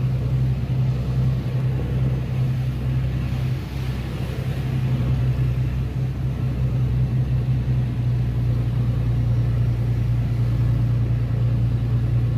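Steady low machinery hum, a constant drone with a rumble beneath it.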